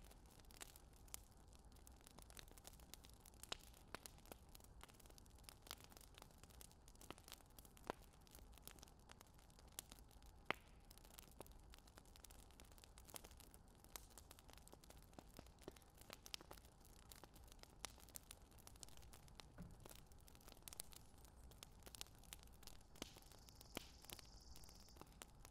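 Near silence with scattered faint clicks and taps of hands handling food: peeling boiled eggs and setting vegetables and eggs into a dough-lined pot.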